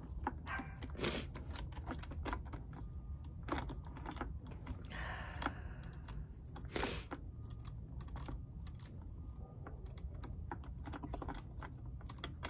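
Irregular light clicks and rattles of a loose steel saw chain being fitted back onto the bar of a Homelite 14-inch electric chainsaw by hand, the links ticking against the bar and the plastic housing.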